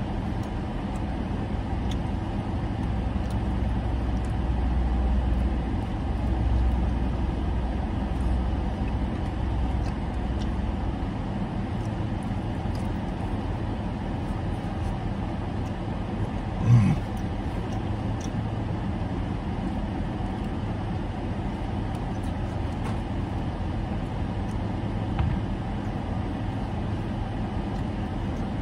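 Steady hum and airflow of a car's air conditioning with the engine idling, heard inside the cabin; a heavier low rumble eases off about eleven seconds in. One short, louder sound breaks in a little past the middle.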